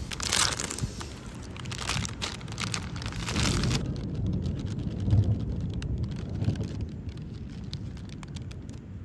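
Plastic snack packaging crinkling and crackling for about the first four seconds, then low rumbling handling noise with scattered faint crackles.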